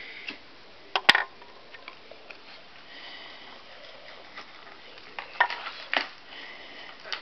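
A few sharp clicks and knocks of objects being handled, the loudest about a second in and a cluster between five and six seconds in, over light rustling.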